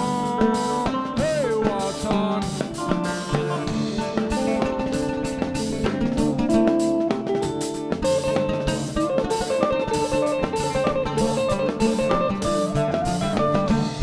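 A band playing a passage with no words sung: an oud plucked with a plectrum, together with electric guitar and drum kit.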